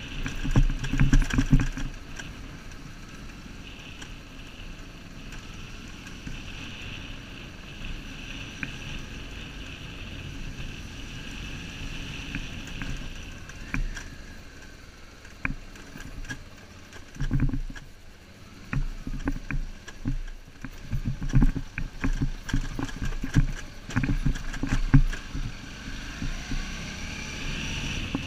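Motorcycle engine running steadily at low speed on a rough gravel track, heard from a camera mounted on the bike. Repeated thumps and rattles as the bike jolts over bumps, heaviest about a second in and through the second half.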